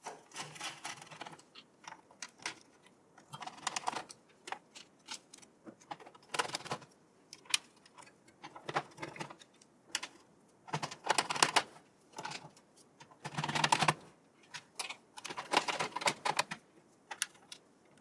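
Hand screwdriver driving the screws that fix a motherboard into a metal PC case: irregular clicks, scrapes and light rattles with short pauses between them.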